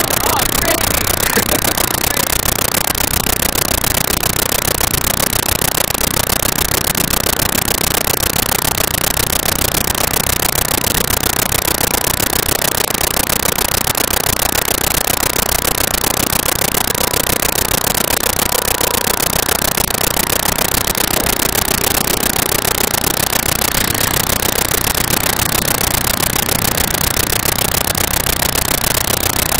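Steady, loud rushing roar of a river in flash flood, running high and fast.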